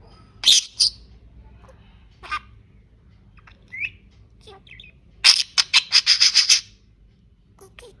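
Budgerigar chirping and squawking in short, sharp, high calls, with a quick run of about eight chirps in a row past the middle.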